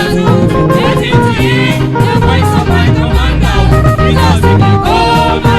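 Gospel worship band music with a steady bass and drums and a melodic lead line, between sung lines of a worship song.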